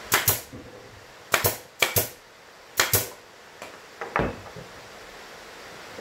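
Pneumatic brad nailer driving nails into plywood: four sharp double cracks, roughly one every half second to second. A softer knock follows about four seconds in.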